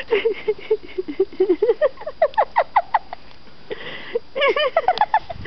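A person making a quick run of high-pitched, squeaky vocal noises, several a second, most sliding up in pitch, with a short breathy hiss about four seconds in.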